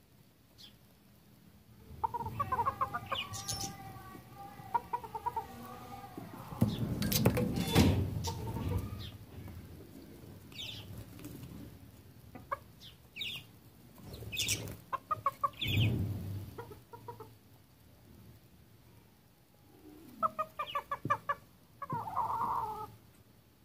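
Roosters clucking in short bursts of calls while feeding, with a louder rustling burst about seven seconds in and several sharp short strokes in the middle.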